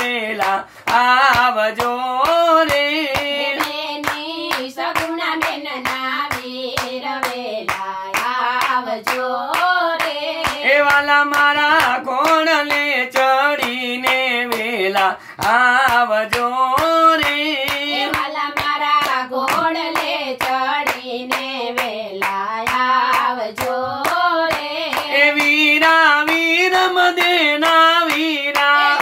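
A small group singing a Gujarati devotional dhun, keeping time with steady rhythmic hand claps.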